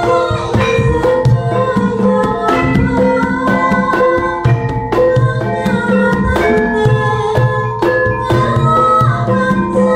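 Javanese gamelan ensemble playing: bronze saron metallophones struck with mallets ring out a melody over bonang kettle gongs, while a kendang barrel drum beaten by hand keeps the rhythm with low strokes.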